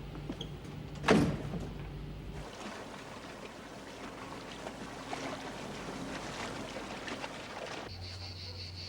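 A steady rushing of water and engine noise from a ship under way, following a low hum broken by one loud knock about a second in. Crickets start chirping near the end.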